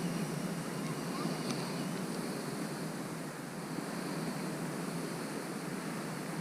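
Steady rushing noise of wind across the microphone outdoors, even and without distinct events.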